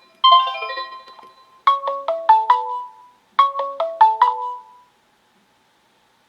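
Sonim XP6 mobile phone's stock ringtone melody playing. It opens with a quick falling run of notes, then a short five-note chiming phrase plays twice, and the sound stops about five seconds in.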